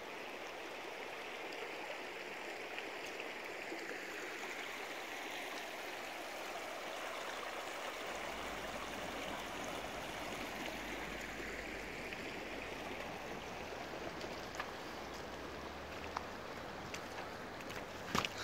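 Shallow river rushing steadily over a stony bed. A brief cluster of sharp clicks comes near the end.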